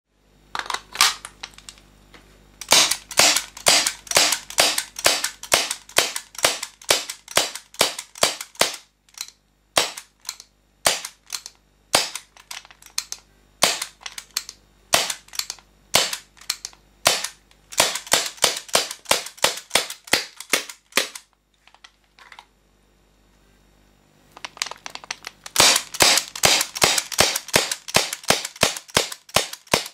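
HFC C96 non-blowback gas airsoft pistol firing in quick strings of sharp pops, about three a second, with short pauses between strings and a longer break near the end before another rapid string.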